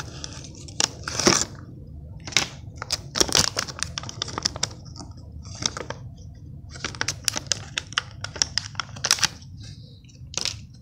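Clear plastic blister packaging and its card sleeve crinkling and being pulled open by hand, in irregular crackles and rustles, as a fidget spinner is unpacked.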